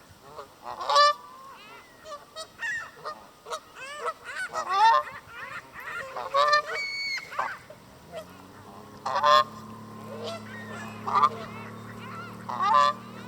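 Canada goose honking up close: a long irregular series of short honks. A steady low hum comes in about eight seconds in beneath the calls.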